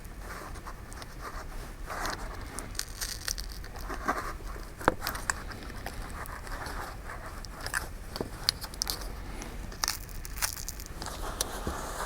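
A pry tool scraping and clicking under an iPhone 5's battery as it is worked loose from its adhesive: irregular small scrapes with scattered sharp ticks.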